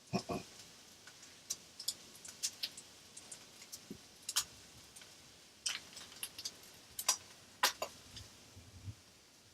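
Scattered sharp clicks and crackles at irregular intervals, about fifteen in all, with a soft low knock at the start.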